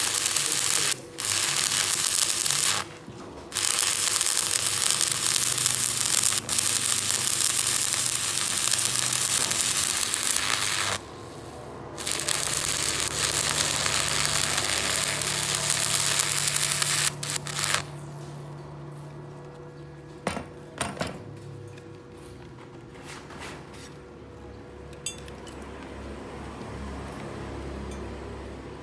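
Stick (arc) welding: the electrode's arc crackles and hisses steadily, breaking off briefly a few times, and stops about two-thirds of the way through. After that only a low hum remains, with a few sharp clicks.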